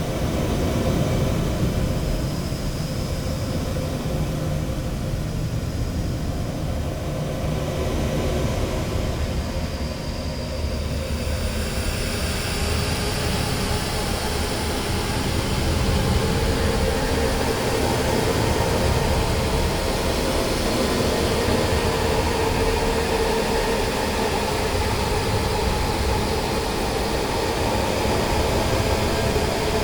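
Noise-music track: a dense, steady rumbling drone with no clear beat or melody. About twelve seconds in, a brighter hissing layer fades in over the rumble.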